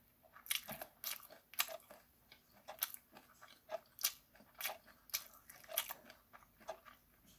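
Close-up chewing of charcoal-grilled chicken feet and rice: a run of short, crisp crunches and wet clicks, about one or two a second.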